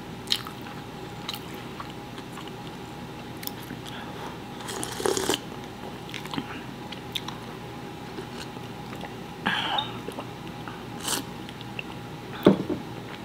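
Close-up eating sounds: sips of birria consomé from a glass and chewing of birria pizza, with scattered small mouth clicks and two louder sips about five and nine and a half seconds in.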